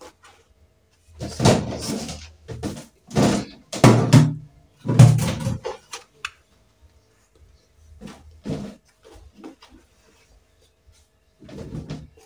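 Reusable shopping bag rustling and crinkling as hands move tomatoes inside it, in several loud bursts of handling noise over the first six seconds, then fainter handling after that.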